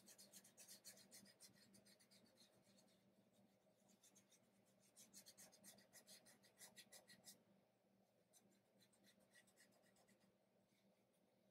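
Very faint rubbing of fingertips blending chalk pastel on paper, in quick repeated strokes: one spell at the start and another about five seconds in.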